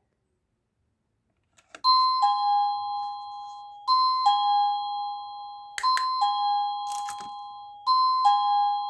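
Electronic doorbell chime playing a two-note ding-dong, high note then low, four times about two seconds apart, each note fading away. It starts about two seconds in, just after a click, and a few sharp clicks fall in the middle.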